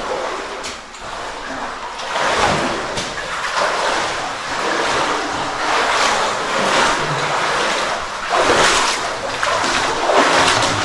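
Water sloshing and splashing in uneven surges as people wade through deep water.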